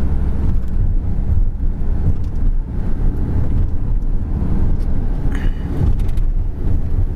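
Delivery van driving on a rough forest road, heard from inside the cab: a steady low engine and road rumble, with a short high squeak about five seconds in.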